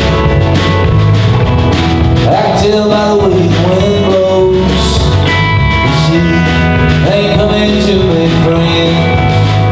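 Live country-rock band playing a song, with guitars over a steady drum beat.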